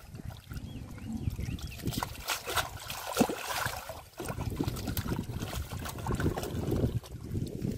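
Shallow muddy water splashing and sloshing as hands grope through it and grab a catfish, with irregular sharper splashes. A denser low rumble joins about four seconds in.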